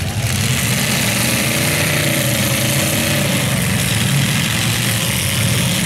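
Engines of several demolition derby cars running, a steady loud mix with the pitch wandering up and down a little as drivers work the throttle.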